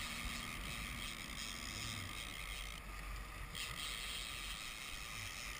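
Boat's motor running steadily under a low rumble, with water rushing and hissing in the churning wake.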